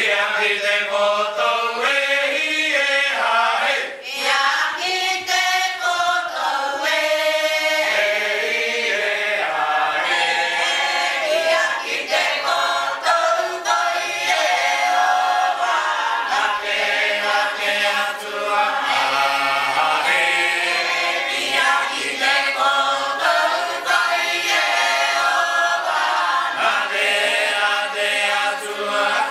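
Cook Islands imene tuki: a choir of men and women singing a cappella in several parts, a continuous chanted hymn.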